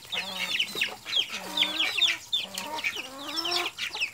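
White domestic ducks quacking as they feed on scattered grain, several longer calls over a steady stream of quick, high peeping calls.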